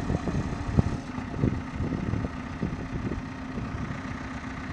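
Komatsu PC71 excavator's diesel engine running steadily, with frequent irregular low knocks and thumps.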